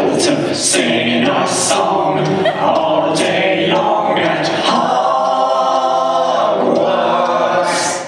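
Several voices chanting an unaccompanied, layered vocal round, with different repeated lines sung over one another in rhythm. It is loud and continuous, with no instruments.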